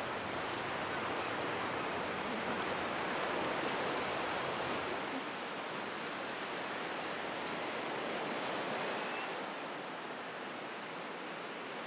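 Steady seashore ambience: small waves washing on a sandy beach, heard as an even hiss.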